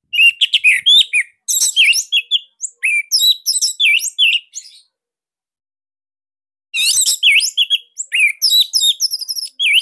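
Orange-headed thrush (anis merah) singing a fast string of sharp, varied chirps and whistles: a burst of about five seconds, a pause of about two seconds, then another burst near the end.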